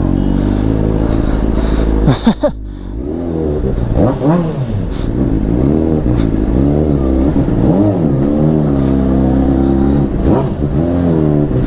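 Honda CBR600RR's inline-four engine through a Yoshimura slip-on exhaust, pulling away in first gear. It runs steadily for about two seconds, then its revs rise and drop sharply, then swing up and down again and again.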